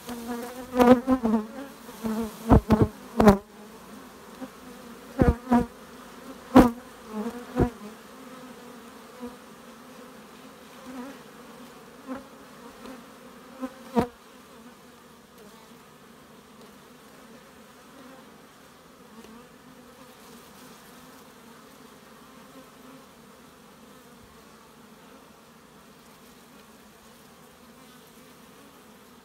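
Carpathian honey bees buzzing around an open hive, a steady dense hum. Several sharp knocks fall in the first eight seconds and one more about fourteen seconds in.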